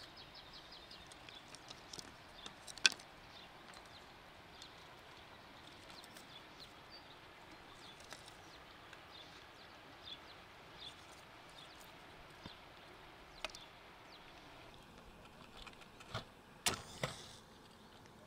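Dry wood splinters and bark clicking and snapping as they are broken and stacked into kindling, over a faint steady hiss. Scattered small clicks run throughout, with a sharp snap about 3 s in and a louder cluster of snaps near the end.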